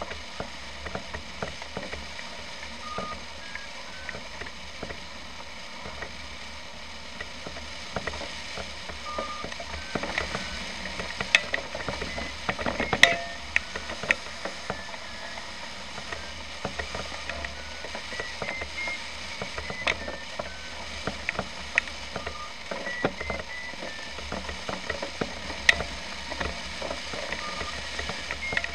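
Short electronic beeps at shifting pitches, now and then stepping upward in short runs, among scattered sharp clicks and ticks over a steady low hum.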